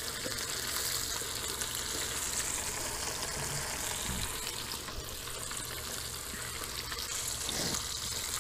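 Breaded bream fillets frying in hot oil in a skillet: a steady sizzle.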